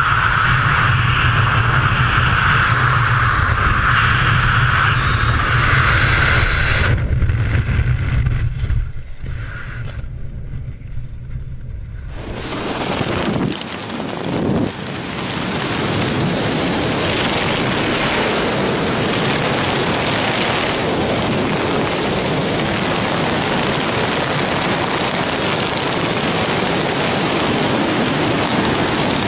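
Wind rushing over a skydiver's camera microphone during the descent. It drops away sharply for several seconds about seven seconds in, then comes back as a steady rush.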